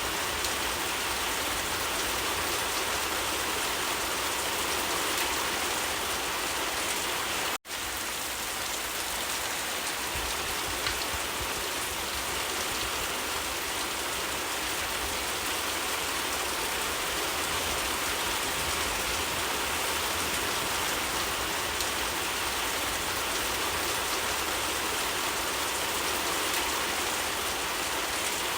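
Steady rain falling on leaves, a dense, even patter of drops. The sound cuts out for a split second about a third of the way in.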